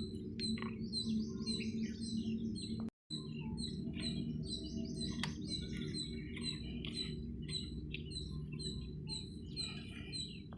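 A small bird chirping over and over, a short high call about twice a second, over a steady low hum.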